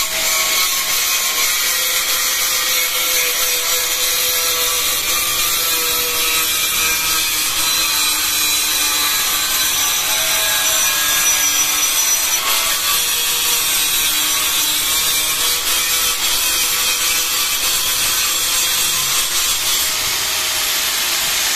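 100 mm electric angle grinder running with its switch locked on, its disc grinding a bevel along the edge of a ceramic tile as the jig is pushed along: a steady motor whine under a continuous gritty grinding hiss.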